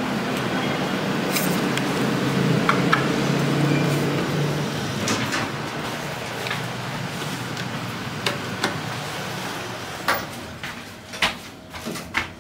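The landing doors of a 1995 Goldstar LVO passenger elevator slide open with a low rumble over the first few seconds. Then comes a steady hum, with several sharp clicks and knocks near the end.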